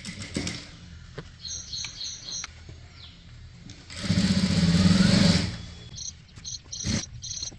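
Sewing machine stitching a single run of about a second and a half, starting about four seconds in. This is the first line of stitching along the folded-in edge of a blouse hem. Before it there are light clicks of the fabric being handled.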